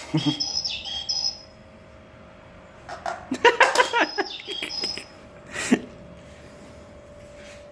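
A bird calling: short high whistled chirps at the start, then a louder run of harsher pitched calls and chirps a few seconds in, and one more call near the end, over a steady low hum.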